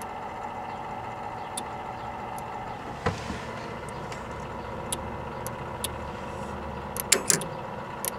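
Steady hum and hiss with a few faint scattered clicks, then two sharp clicks about seven seconds in: a relay in a Zenith Space Command ultrasonic remote receiver pulling in as the test tone is swept up to the channel's frequency. The tone itself is ultrasonic and is not heard.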